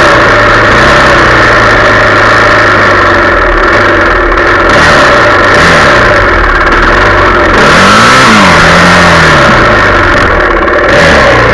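Yamaha 400 dirt bike engine running under way, its pitch rising and falling as the throttle is worked. There is a sharp rev up and back down about eight seconds in.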